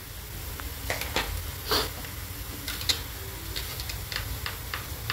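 Chopped onions frying in oil in a pan, a soft steady sizzle with red chilli powder just added on top, over a low hum. A dozen or so light clicks and taps are scattered through it.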